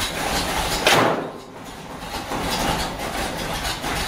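The hood of a 1989 Jeep Grand Wagoneer slammed shut once, about a second in, with a loud bang. The truck's 360 V8 is idling underneath and sounds more muffled after the hood closes.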